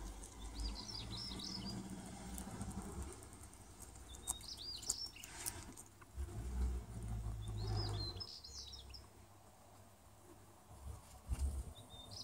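A small songbird repeating a short, high chirping phrase about every three to four seconds, over a low rumble.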